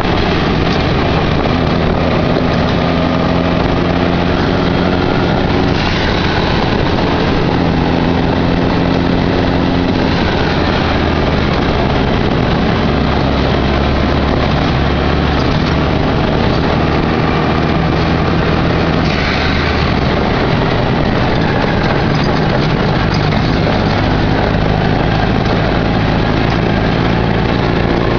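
Off-road dune buggy's engine running under way, heard from the open cockpit under a steady rush of wind and road noise. The engine note shifts in pitch a few times as the speed changes.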